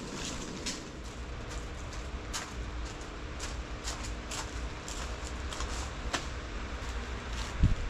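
Irregular crinkling and scuffing as plastic-bagged potted avocado trees are carried and handled, over a steady low hum. A burst of low wind rumble on the microphone starts near the end.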